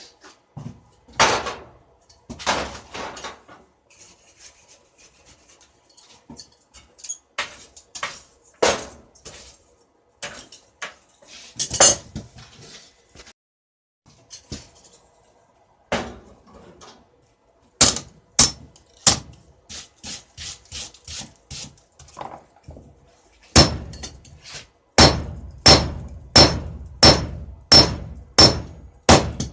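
Hammer blows on metal, each with a short metallic ring. The strikes are scattered and uneven at first, then settle into a steady run of about two blows a second, heaviest in the last few seconds.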